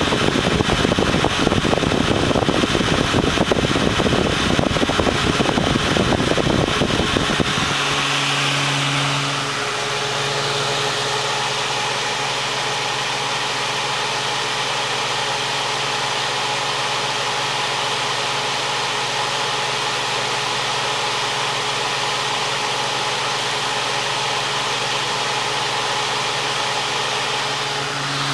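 A Holmes Blizzard fan's two-speed motor and three-blade propeller running on high speed, a steady whir of moving air. For the first seven seconds or so a rough low rumble sits under it, then it settles into a smoother hum with a steady motor tone.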